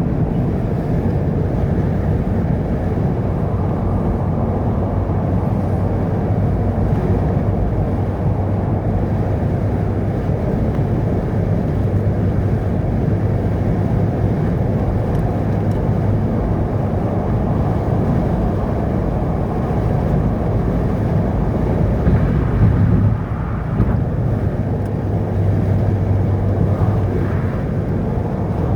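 Steady rumble of a vehicle driving along a road, with a low engine hum that rises and fades at times.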